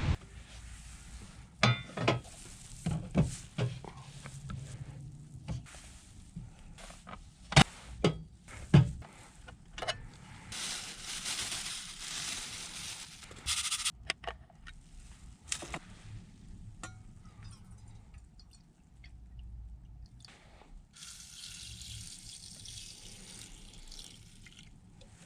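Clicks and knocks of small objects being handled, then water poured in two runs of a few seconds each.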